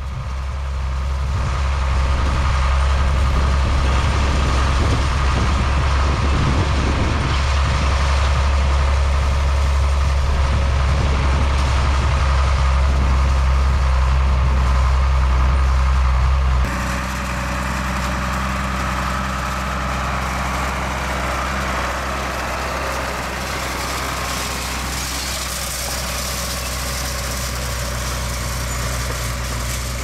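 John Deere 4450 tractor's diesel engine running steadily as it pulls a hay rake through the field, growing louder over the first couple of seconds. A little past halfway the engine sound changes abruptly to a somewhat quieter, different tone.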